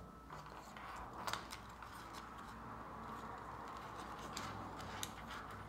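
Hands fitting small wooden parts of a circuit kit: faint rustling with a few light clicks, the sharpest about a second in.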